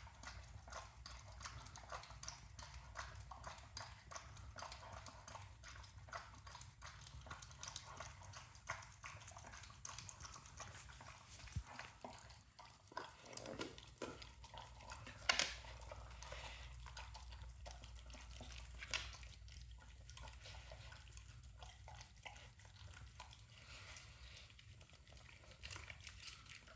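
Dog eating a dinner of deboned chicken, rice and split peas: faint chewing, licking and small clicks, with one sharper click about fifteen seconds in.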